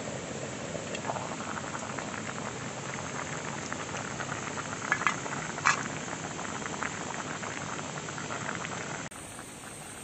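Soup boiling hard in a steel pot over a wood-burning firebox stove: dense, steady bubbling and crackling, with two sharp clicks about five seconds in.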